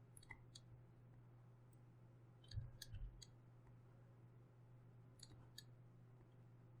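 Faint, scattered clicks of computer input, a few at a time, over a steady low hum of room tone, with a soft thump and a cluster of clicks about two and a half seconds in.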